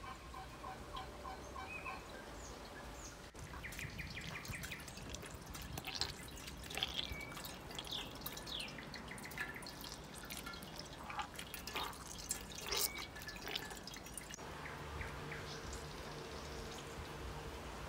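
Whey dripping and trickling into a pot as fresh cheese curds are pressed by hand in a plastic colander, with scattered small wet clicks.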